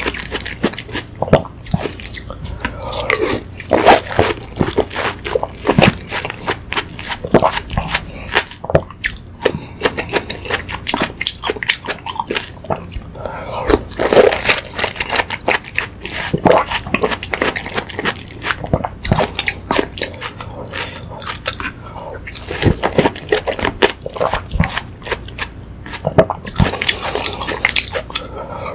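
Close-miked mouth sounds of eating watermelon hwachae: wet chewing, crunching of watermelon chunks and slurping of the fruit punch. A wooden spoon clicks and scrapes now and then in a plastic bowl.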